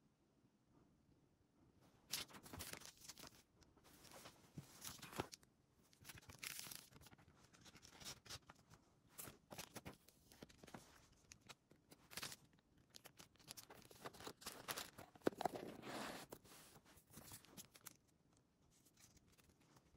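Faint, irregular rustling and scraping handling sounds in bursts, starting about two seconds in and dying away near the end.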